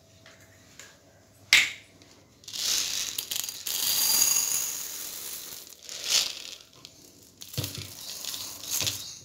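A sharp knock about a second and a half in, then dry urad dal grains poured from a plastic jar into a steel tumbler, a rattling rush lasting about three seconds. A few shorter knocks and trickles follow as the jar and tumbler are handled.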